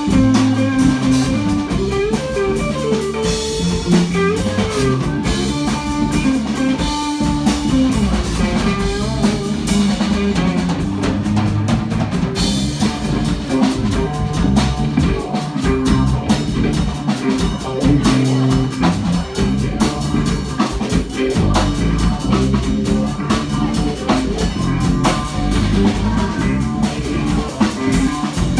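Live rock band playing a song with guitar and drum kit, loud and steady throughout.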